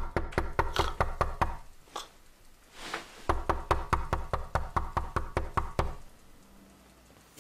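Fast knocking on a door, about five knocks a second, in two long runs with a pause of under two seconds between them.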